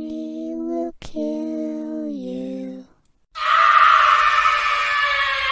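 Horror sound effect of a ghostly voice: two long held moans, the second dipping in pitch near its end, then after a short pause a loud, harsh scream that slowly falls in pitch.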